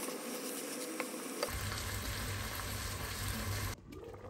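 Food sizzling in a hot pan, a steady frying hiss with a few light clicks, cutting off suddenly near the end.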